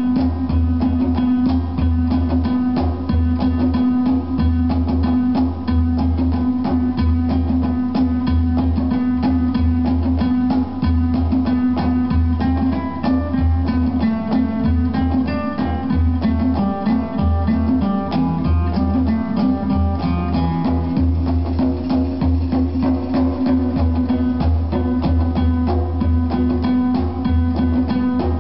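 Guitar-led music with drums and a strong, steady bass, played through PSB B-25 bookshelf speakers driven by a Sony TA-N7050 amplifier.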